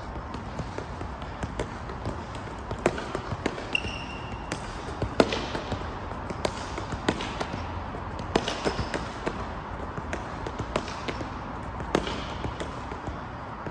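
A football being juggled, kicked up again and again off the feet and legs: irregular short thuds, a few a second, with one harder touch about five seconds in.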